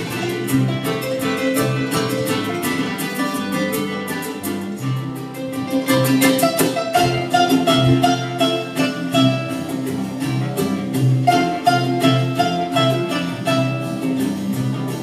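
A small live ensemble of concert harp, acoustic guitar, double bass and percussion playing a lively huapango, with rapid plucked harp and guitar notes over a walking bass.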